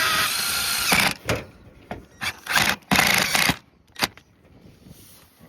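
Power drill driving screws into metal roof-ridge flashing: a run of about a second, then two shorter runs around two and a half and three seconds in, with sharp clicks between.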